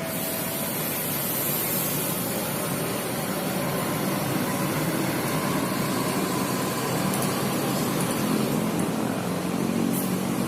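Large bus engine running steadily amid the noise of a busy terminal. The engine hum grows slightly stronger near the end.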